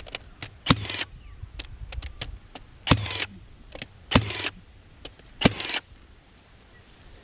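Milwaukee cordless fencing stapler driving staples into a hardwood split fence post: four loud sharp shots about a second or two apart, each followed by a brief whir, with lighter clicks of the tool being handled between them.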